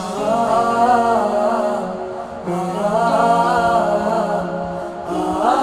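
Background Hindi song: a wordless sung melody in two long, wavering phrases over sustained accompaniment.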